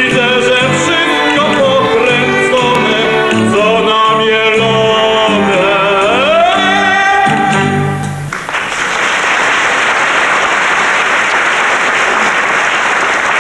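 A man sings a song to instrumental accompaniment, sliding up into a long final note. The music stops sharply about eight seconds in, and the audience breaks into applause.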